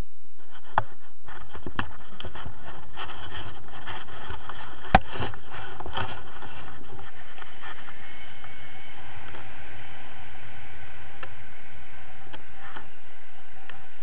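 Wind rushing over an action camera's microphone as a tandem paraglider launches and climbs, with scraping and knocking of the harness and risers against the camera. A sharp knock comes about five seconds in.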